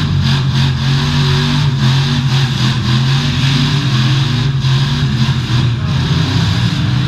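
Demolition derby cars' V8 engines running loud and revving in the arena.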